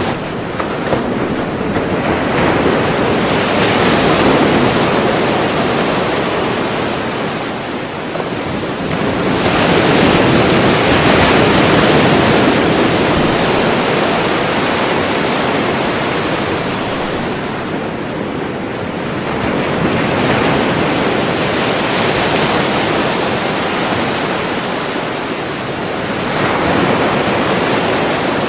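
Ocean waves breaking and washing on shore, a continuous rushing surf that swells with each wave, about four swells here, and falls back between them.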